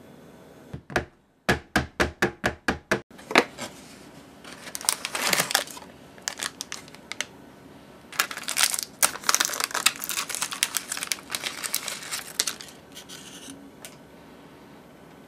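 A quick run of about eight sharp knocks, then the crinkling and tearing of a biscuit box and the plastic wrapper of an individually wrapped biscuit being opened by hand, densest for several seconds in the second half.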